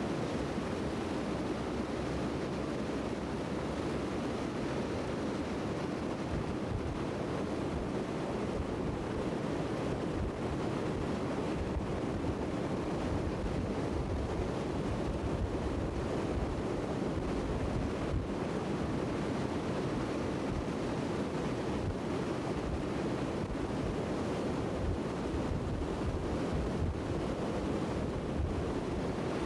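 A steady rushing noise, even in level, with no distinct tones or separate knocks.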